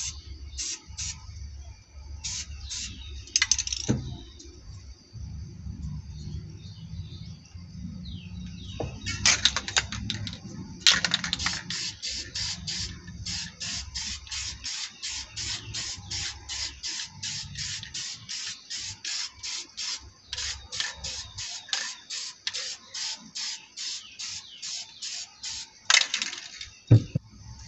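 Aerosol spray paint can: a few short hisses, a longer spray burst, then an even run of short, sharp bursts about three a second for some fifteen seconds. Two sharp knocks, one near the start and one near the end.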